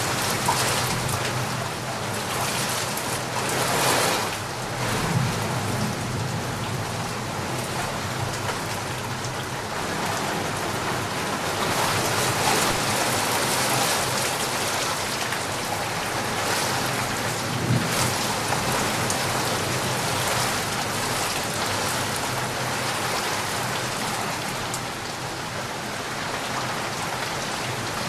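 Heavy rain falling in a steady downpour, swelling and easing slightly from time to time.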